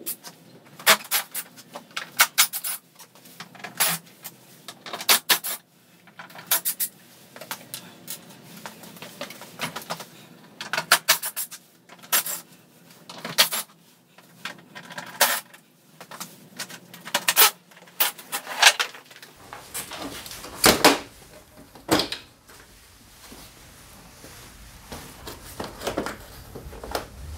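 Bodywork being taken off a Daelim Citi Best underbone motorcycle: plastic cowl panels unclipped and pulled free, with light clinks of small metal parts. Sharp clicks and clatters come in irregular bunches, the loudest about three quarters of the way through.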